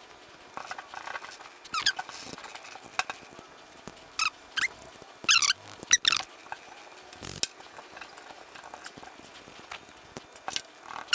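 Rag squeaking as it is rubbed hard over the metal bore and throttle plate of a GM electronic throttle body, cleaning off carbon buildup: short, high squeaks at irregular intervals over faint wiping. A soft knock about seven seconds in.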